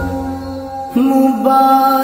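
A slowed, reverb-heavy hamd: a male voice holds long drawn-out notes. A held note fades over the first second, then a new note comes in about a second in, and the deep bass underneath drops away.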